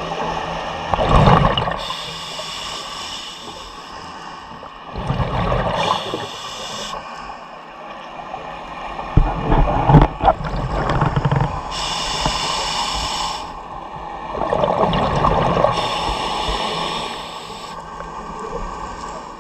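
Scuba diver breathing through a regulator underwater: four breaths, each a hiss from the demand valve on the inhale and a bubbling rumble of exhaled air.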